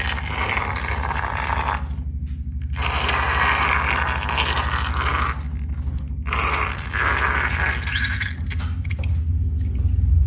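Slime being kneaded and squished by hand, a crackly, squelchy sound that comes in stretches of a second or more, with short pauses about two seconds in and again around five to six seconds. A steady low hum runs underneath.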